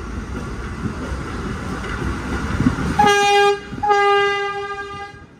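Vintage New York City subway train rumbling into the station, then sounding its horn twice on one steady pitch: a short blast about three seconds in, then a longer one.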